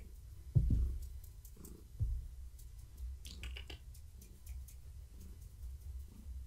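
A cat moving right up against the camera: two dull thumps, about half a second and two seconds in, then a short run of light clicks around three and a half seconds, as it brushes past the microphone.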